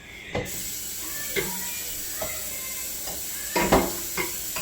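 Kitchen dishes and utensils knocking and clinking several times over a steady hiss, the loudest knocks a little before the end.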